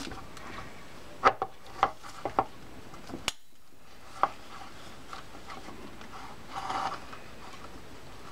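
Small metal clicks and taps of a Garcia Mitchell 624 reel's side plate and finger-grip screws being handled and started by hand, about seven sharp ticks in the first four seconds, then a brief rubbing scrape near the end.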